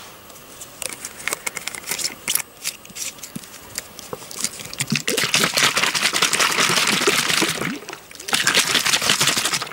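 Plastic water bottle handled with clicks and crinkles as its cap goes on, then shaken hard so the water and mint leaves inside slosh rapidly, in two bouts with a brief pause between.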